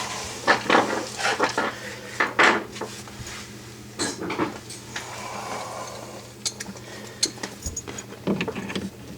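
Clinks, taps and light knocks of small metal fittings and hand tools being handled while a dishwasher's water supply line is connected. The clatter is busiest over the first few seconds and picks up again near the end.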